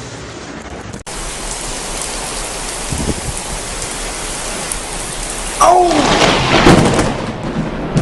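Heavy rain in a storm, a steady hiss that surges much louder a little past the middle. A short gliding cry, like a voice, rises over the loudest part.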